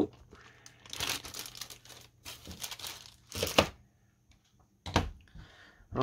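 Clear plastic bag crinkling in irregular bursts as a new laptop battery is unwrapped from its packaging, with one sharp knock about five seconds in.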